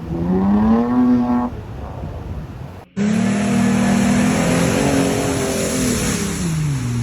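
An off-road 4x4's engine revs up, rising in pitch. After a sudden cut about three seconds in, another engine revs hard with a lot of noise around it, its pitch holding and then falling near the end.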